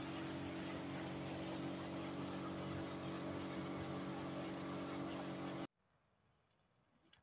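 A small boat's motor running steadily under way, with a hiss of water and wind rushing past. The sound cuts off abruptly near the end, leaving near silence.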